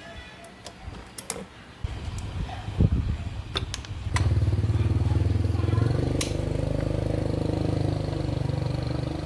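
Motorcycle engine catching and then running steadily with a fast, even pulse, after a few sharp clicks.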